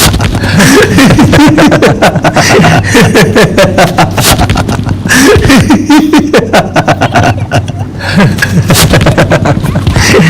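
Laughter sound effect: people laughing hard in quick, choppy bursts of 'ha-ha' that run on almost without pause.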